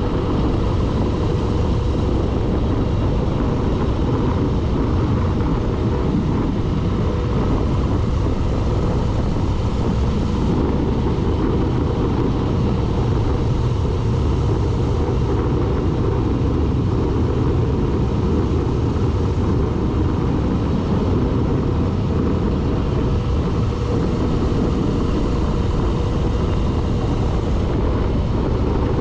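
A vehicle on the move: a steady, even rumble of engine, road and wind noise that keeps the same level throughout.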